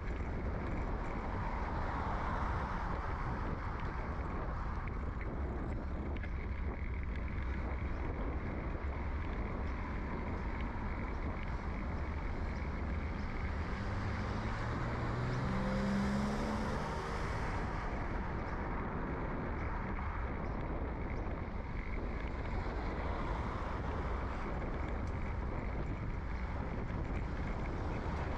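Steady low rumble of wind and road noise picked up by a bike-mounted microphone while riding beside passing car traffic. About halfway through, a passing vehicle's engine rises in pitch in steps as it accelerates, the loudest moment.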